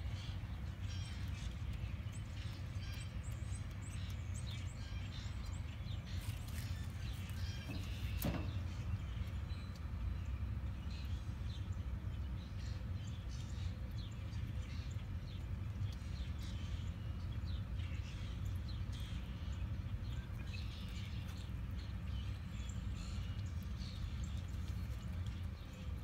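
A mix of wild birds calling, many short chirps scattered throughout, over a steady low rumble, with a single sharp click about eight seconds in.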